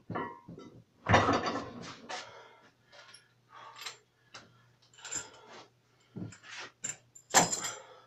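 A loaded barbell set back into a wooden squat rack, with a loud knock about a second in, then scattered knocks and scuffs and another loud knock near the end, over a low steady hum.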